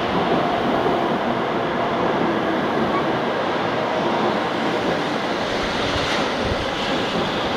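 Kodama Shinkansen bullet train pulling in along the platform, a steady rushing hiss of wheels and air as its cars slide past.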